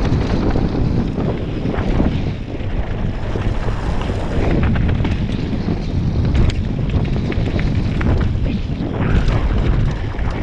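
Wind buffeting a helmet-mounted microphone on a fast mountain-bike descent, with the tyres rolling over loose dirt and rocks and the bike rattling in many short clicks and knocks over the rough ground.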